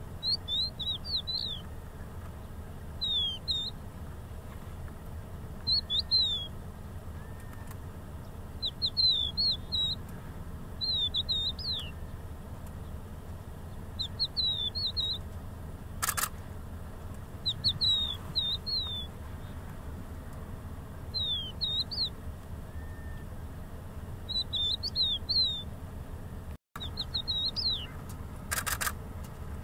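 Crested lark singing: short phrases of clear, slurred whistled notes, repeated every two to three seconds.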